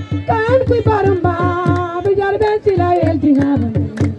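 A woman singing a gliding melody into a microphone, amplified through a PA, over a steady drumbeat.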